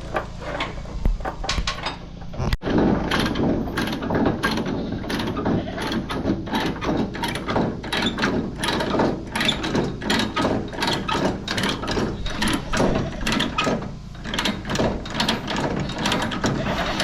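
Ratchet tie-down being cranked tight, a rapid run of ratchet clicks stroke after stroke that starts a couple of seconds in and pauses briefly near the end, as the load is cinched down.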